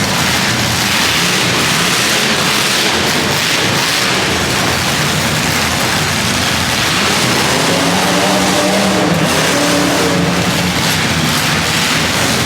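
Demolition derby car engines running and revving loudly over a dense wash of noise, with one engine's pitch rising about eight seconds in.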